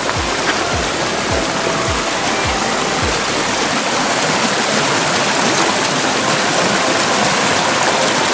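Steady rush of flowing stream water, with background music's low beat, about two a second, for the first three seconds.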